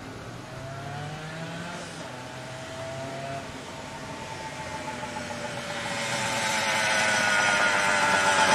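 Sportbike engine running as the bike comes closer. Its pitch rises over the first few seconds, then holds roughly steady while the sound grows steadily louder.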